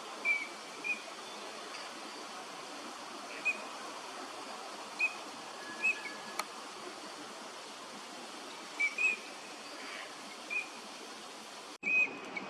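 Eurasian teal calling: short, high whistled notes, singly and sometimes in quick pairs, every second or few over steady background noise. A single sharp click comes about halfway through.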